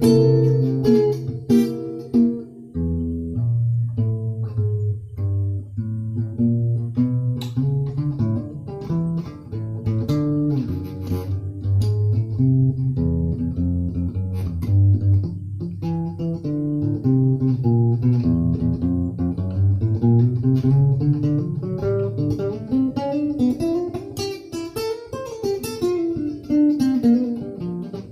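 Guitar music: quick plucked notes over lower bass notes that change every second or two.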